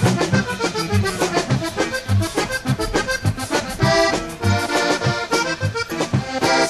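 Live Tejano conjunto music, instrumental: a button accordion plays the melody over an electric bass, guitar and drums keeping a steady beat.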